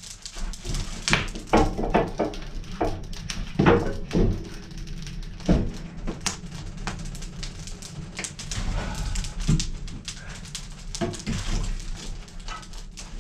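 Firewood being loaded into a burning wood stove: a series of irregular knocks and clunks as split logs hit the firebox, over the crackle of the fire.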